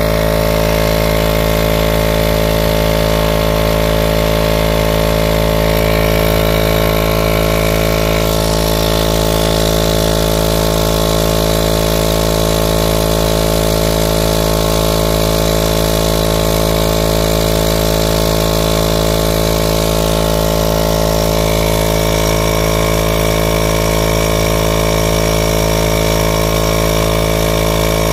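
A motor running steadily close by, an even, unchanging mechanical drone with no change in speed.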